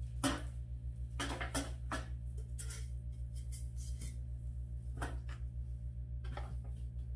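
Plastic grill parts being unwrapped and handled: scattered light knocks, clicks and plastic-wrap rustles, over a steady low hum.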